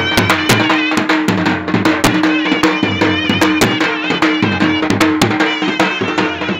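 Loud traditional folk music: fast, dense drum strokes under a high, wavering melody line, with a steady drone note held beneath.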